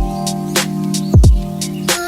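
Background music with a steady beat: deep kick drums that drop in pitch, sharp snare hits and held chords underneath.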